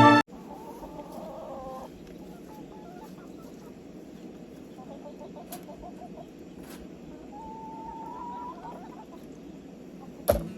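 Backyard chickens clucking and calling, with a few longer calls, one rising. A single sharp knock near the end.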